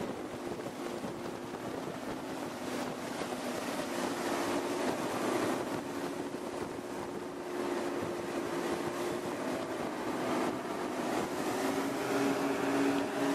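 A patrol boat's engines running at high speed, a steady drone with wind and water rushing past the open deck.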